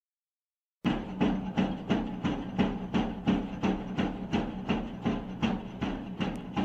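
Mini excavator running, with sharp regular knocks about three a second over a steady engine hum, starting about a second in.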